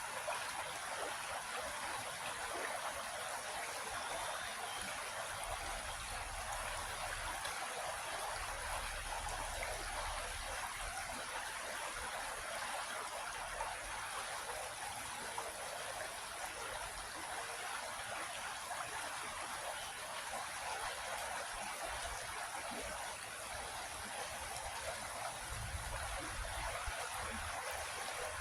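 Creek water flowing over rocks, a steady rushing and trickling.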